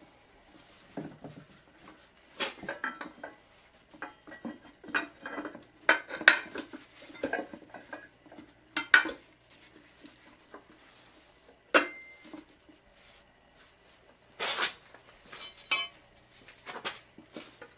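Steel tools of a manual tire changer, its mount/demount bar and a tire iron, clanking and clinking against the center post and the steel wheel rim while a small mower tire's bead is worked over the rim. Irregular metallic knocks and scrapes, one clank ringing briefly.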